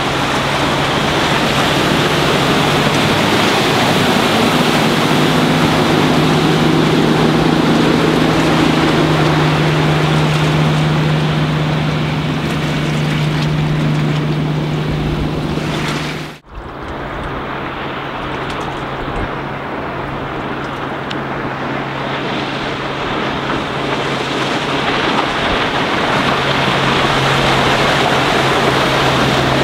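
A Doral Monticello sports cruiser's Mercruiser 4.2-litre D-Tronic six-cylinder diesel running at planing speed, a steady drone over the rush of water. The sound cuts out sharply for a moment about halfway through, then the drone resumes a little lower in pitch.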